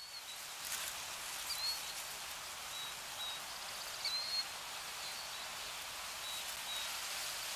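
Nature ambience: a steady hiss with short, high bird chirps about once a second, starting abruptly.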